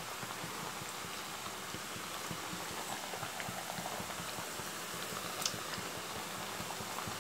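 Thattai (flat rice-flour crisps) deep-frying in hot oil in a kadai: a steady crackling sizzle of oil bubbling around them, with one slightly louder tick about five and a half seconds in.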